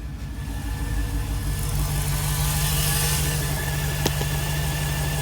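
A 6.1 Hemi V8 in a 2006 Jeep Grand Cherokee SRT8 idling while it warms up, misfiring on cylinder 5, with a brief click about four seconds in.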